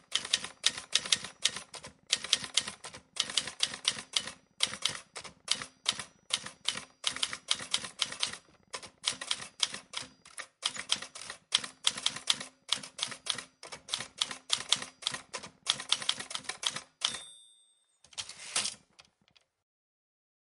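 Fast runs of clacking keystrokes, typewriter-like typing, go on for about seventeen seconds in bursts with short gaps. They end with a short ringing tone and one last brief rattle.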